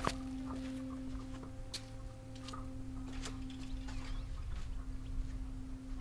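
One steady sustained note of soft background music held throughout, over a faint low rumble, with a few faint scattered ticks.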